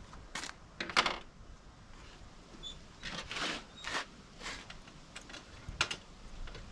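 Irregular clicks, taps and brief scrapes of small parts and tools being handled on a workbench, with the sharpest click about a second in.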